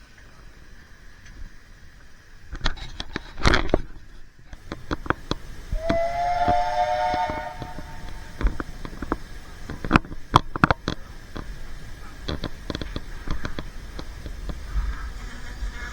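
Steam locomotive whistle giving one short blast of several close pitches, about a second and a half long, near the middle. Irregular sharp knocks and clatter run throughout, with a loud burst a few seconds in.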